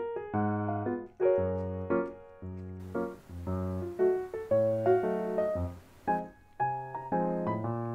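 Background piano music, a run of single notes and chords struck a couple of times a second.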